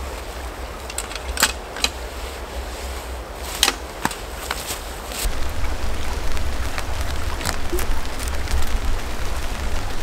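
A camouflage tarp and its guyline being handled and tensioned: several sharp clicks and snaps in the first half, then close, continuous rustling of the tarp fabric from about halfway, over a low steady rumble.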